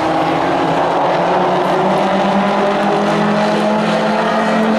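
Engines of several Pro4 racing trucks running hard on the track, their notes held steady with a slight rise in pitch about a second and a half in.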